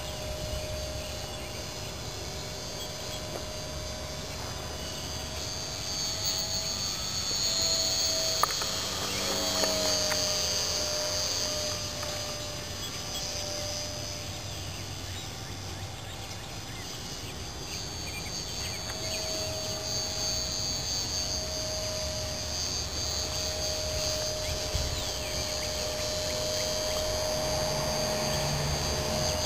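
Electric motor and propeller of a Carl Goldberg Husky 400 radio-controlled park-flyer airplane droning in flight: one steady tone that wavers in pitch, swelling louder and dipping in pitch about eight to ten seconds in as the plane passes.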